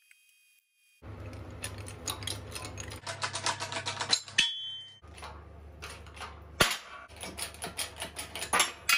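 Hydraulic shop press with a bottle jack pressing out a bearing, with a run of metallic clicks and knocks after about a second as the jack is worked. About two-thirds through comes one sharp, loud crack, the bang of the pressed-in part breaking free.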